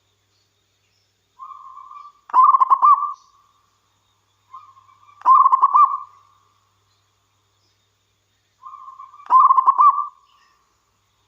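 Zebra dove (perkutut) singing: three song phrases a few seconds apart, each a soft held note that breaks into a louder run of quick rolling coos.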